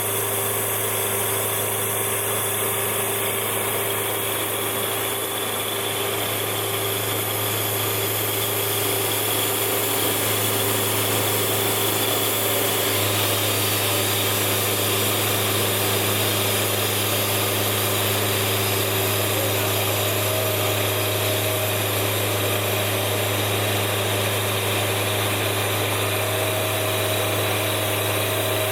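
A sawmill's engine running steadily under a constant low hum, its note shifting slightly about thirteen seconds in.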